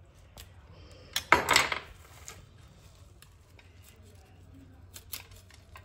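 Kitchen knife cutting through a handful of fresh leafy greens with their stems: a short burst of crisp cutting and leaf rustle about a second in, then a few faint light clicks near the end.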